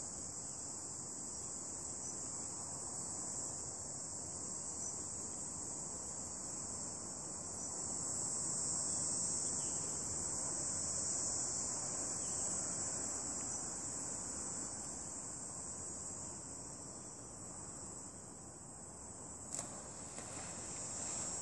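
Steady high-pitched chorus of insects, unbroken throughout, over a low outdoor hiss, with one brief sharp sound near the end.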